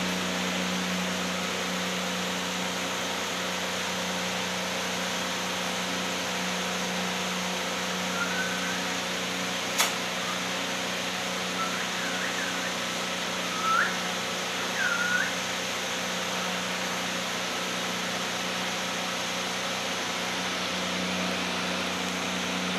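A steady mechanical hum and hiss, with a few short chirps from small pet parrots about a third to two-thirds of the way through. A single sharp click comes near the middle.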